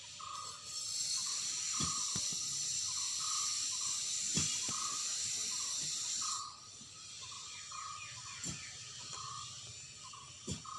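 Outdoor ambience: a steady high hiss that drops away about six seconds in, with a short tone repeating roughly once a second and a few scattered clicks.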